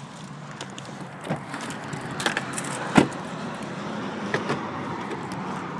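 Light clicks and handling noise at a car's exterior door handle over a steady background hiss, with one sharp click about three seconds in.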